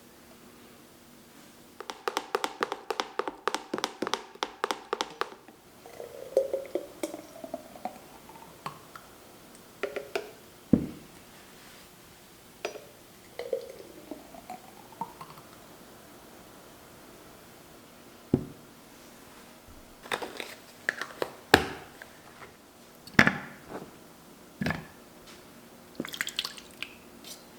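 Hand blender running briefly with a rapid pulsing sound, from about two seconds in to about five. Then come wet, squishy sounds of food and liquid, with a few sharp clicks and knocks of kitchenware.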